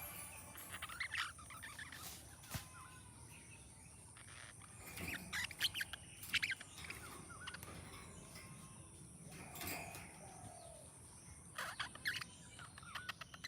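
Budgerigar chirping faintly in short, scattered bursts, with quiet gaps between them.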